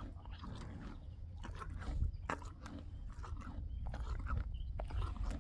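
A donkey crunching and chomping on chunks of raw carrot, an irregular run of short crisp crunches.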